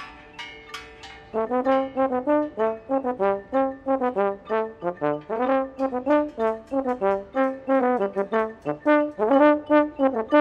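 Background music: a few sustained ringing notes, then about a second in a quick melody of short, detached notes begins and carries on.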